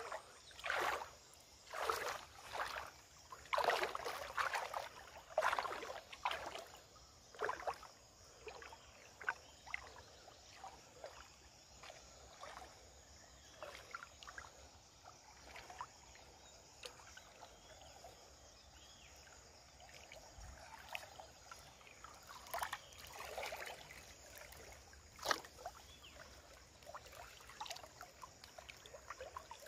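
Water splashing and sloshing in irregular bursts as a person wades through a shallow river, handling a gill net, heaviest in the first several seconds and again about three-quarters of the way through.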